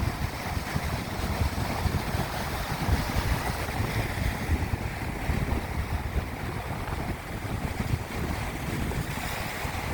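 Sea water washing and splashing, with wind buffeting the microphone in a gusty low rumble.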